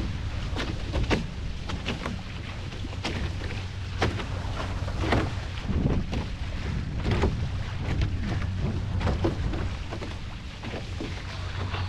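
Racing catamaran underway through choppy water: a steady low wind rumble on the microphone, with irregular splashes and slaps of water against the hulls about once a second.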